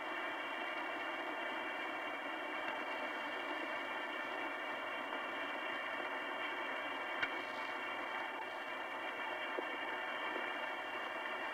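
Steady hiss and static from the Apollo 10 crew's onboard voice recording, with the crew silent; a short click sounds about seven seconds in.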